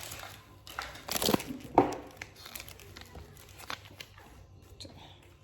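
Plastic toy packaging crinkling and tearing as it is unwrapped, with a dense cluster of loud crackles between about one and two seconds in, then lighter scattered crinkles.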